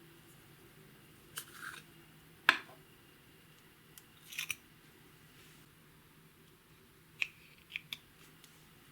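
Sparse short clicks and crackles from makeup being worked into clear slime by hand. The loudest comes about two and a half seconds in, with a quick pair near the end.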